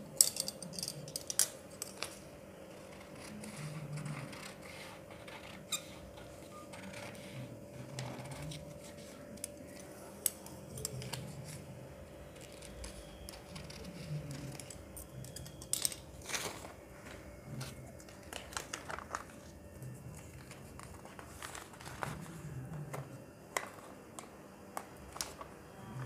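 Large tailor's scissors snipping through folded paper in short, scattered cuts, with the paper rustling and crinkling as it is turned and handled. A faint steady hum runs underneath.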